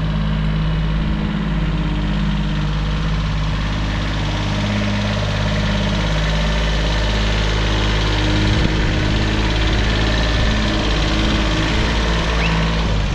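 Kubota compact tractor's diesel engine running steadily as the tractor drives slowly, towing a trailer.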